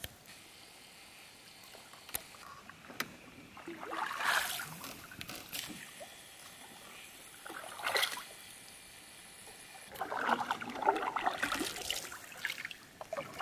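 Canoe paddle working the water: swishing and dripping in short bursts a few seconds apart, the last one longer and busier, with a few faint clicks between.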